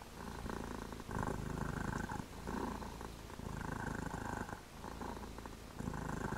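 Mother cat purring steadily while nursing her newborn kittens, the purr swelling and easing in a slow rhythm about a second apart.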